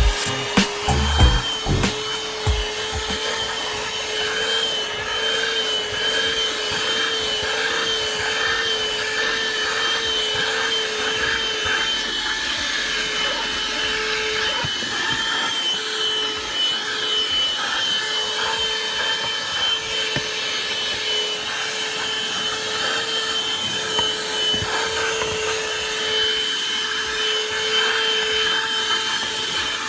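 Excelvan CV-LD102 12 V cyclone-type handheld car vacuum cleaner running steadily, its motor whine wavering slightly in pitch. There are a few knocks in the first couple of seconds.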